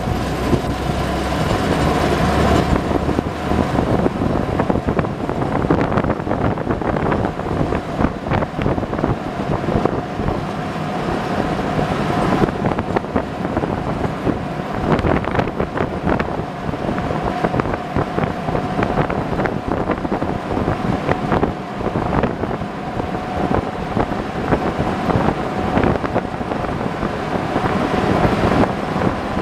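A WWII DUKW amphibious truck driving on a road, heard from on board: its original gasoline engine running under way, with road rumble, rattles and jolts, and a steady whine held throughout.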